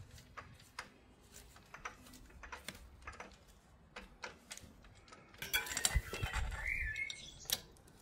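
Irregular light clicks and clinks of small metal parts and hand tools being handled during assembly, with a denser burst of louder clatter and a brief squeak about six seconds in.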